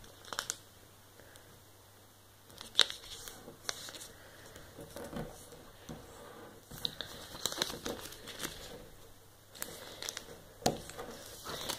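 A sheet of origami paper rustling and crinkling as it is folded and creased by hand, with scattered sharp crackles. Barely anything for about the first two seconds, then the paper noises come and go.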